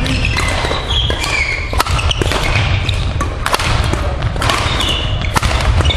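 Badminton rackets striking shuttlecocks: sharp cracks at irregular intervals, roughly one a second, ringing in a large sports hall. Short high squeaks of shoes on the court floor come in between, over a steady low rumble.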